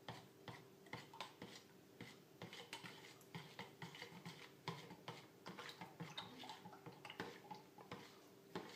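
A knife stirring gelatine powder into cold water in a plastic jug, faintly tapping and scraping against the jug in small irregular clicks.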